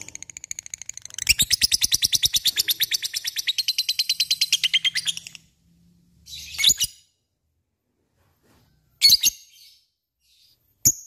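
Lovebird giving a long, rapid chattering trill of about ten notes a second for around five seconds, then three short, sharp chirps a couple of seconds apart.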